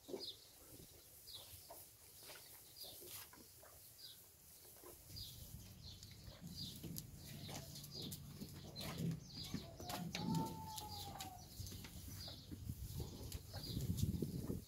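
Goat buck slurping milk from a steel bowl, the sound growing from about five seconds in. A bird's short high chirps repeat throughout.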